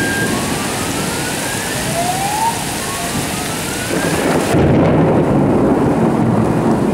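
Heavy thunderstorm rain pouring steadily, with a low thunder rumble that swells about four seconds in.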